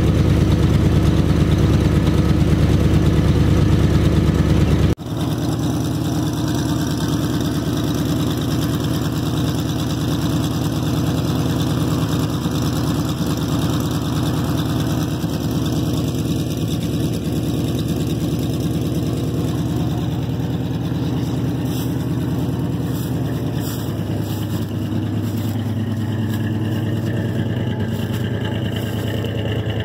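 1978 Chevrolet farm truck's engine idling steadily while warming up after a cold start, heard close to its exhaust.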